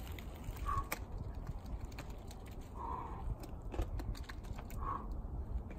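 Scattered light clicks and scuffs from bouldering on rock, over a steady low rumble, with three brief faint tones spread through it.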